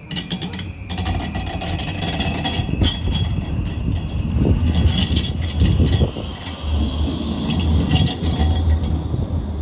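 Badner Bahn tram-train running past on its rails: a low rumble of wheels and motors that swells at the start, with a few sharp clicks and faint high-pitched tones.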